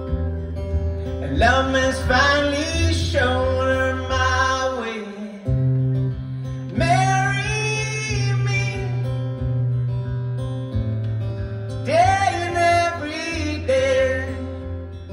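Live pop song: a male singer sings three long phrases with held notes over a strummed acoustic guitar and sustained low bass notes, heard through a concert sound system.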